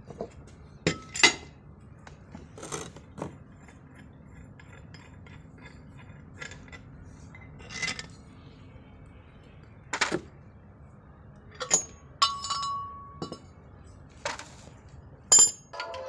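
Metal parts and tools clinking and knocking against each other during engine overhaul work: about a dozen sharp, irregular clinks, a couple of them ringing on briefly.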